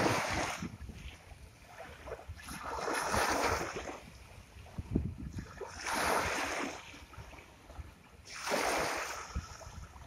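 Ocean surf washing onto a shore, rising and falling in four surges about every two and a half to three seconds, with low rumbling between them.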